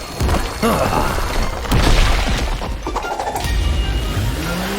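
Cartoon sound effects of rock shattering and crumbling over a heavy rumble as a drill breaks through, with background music; the loudest crash comes about two seconds in.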